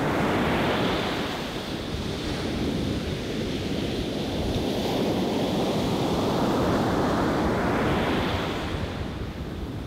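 Ocean waves washing in: a steady rushing noise that swells and eases over a few seconds, used as a sound effect.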